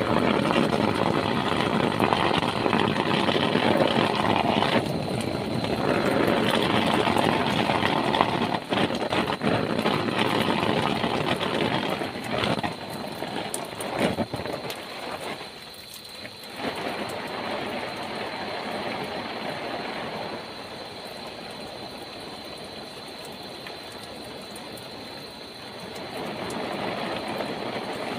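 Heavy rain falling on a plastic tarp shelter: a dense, steady hiss of drops hitting the sheet. It is loud at first and drops to a softer, even level about halfway through.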